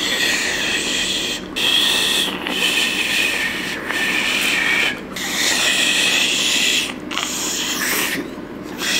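Breath blown hard past two fingers held in the mouth: a failed attempt at a finger whistle that gives a rushing, hissing sound with only a faint, unsteady whistle tone. It comes as a series of blows, about seven, broken by short gaps.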